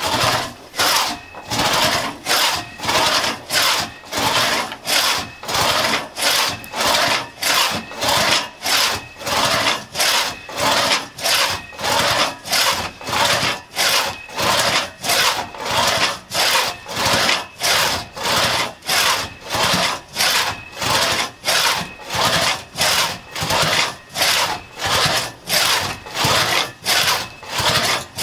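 A 4.5-foot one-man Tuttle-tooth crosscut saw cutting through a gray birch log. The sawing goes on steadily at an even rhythm of about two strokes a second.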